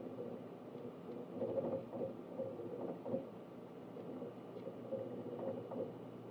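Synology DS1821+ eight-bay NAS running: a steady hum from its cooling fans and drives, with irregular flurries of hard-drive seek chatter coming and going.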